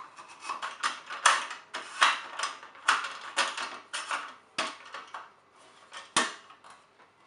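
Metal folding camp-table legs and slat top clicking and clattering as the legs are pushed and slid into the holes along the slats: an irregular string of sharp clicks and scrapes.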